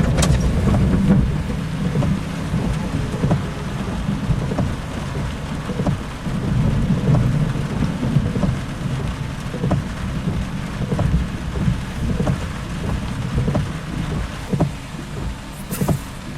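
Rolling thunder rumbling, swelling near the start and again midway, under heavy rain drumming on a car, with scattered sharp drop ticks.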